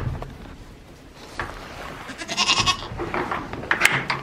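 A goat kid bleats once, about two seconds in, among scattered knocks and rustles.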